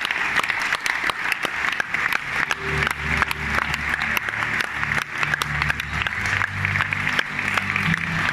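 Audience applause: many people clapping steadily. About two and a half seconds in, low sustained tones join underneath the clapping.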